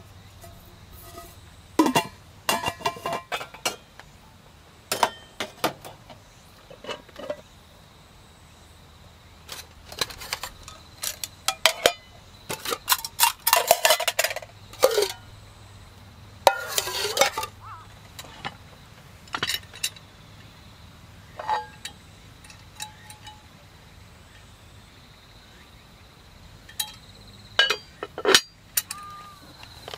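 Aluminium camp cookware, a Snow Peak Trek Combo nesting pot set and its lids, being lifted, nested and set down: irregular metal clinks and knocks, some with a brief ringing, busiest around the middle.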